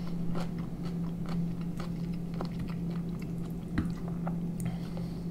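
A person chewing a mouthful of boiled beef pelmeni, close to the microphone, with small wet mouth clicks. A fork clicks on the plate near the end, over a steady low hum.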